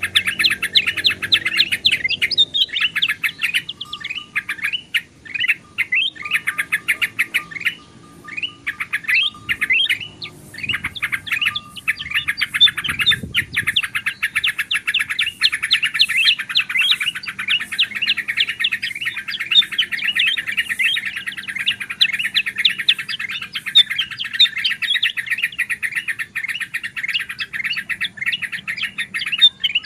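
Bulbuls chattering in a dense run of rapid, repeated chirps. There are short gaps in the first half; from about halfway through the chirping is almost unbroken.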